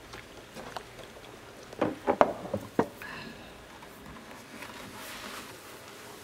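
A quick cluster of sharp knocks and clinks of glasses and tableware on a table, about two seconds in, over quiet room noise.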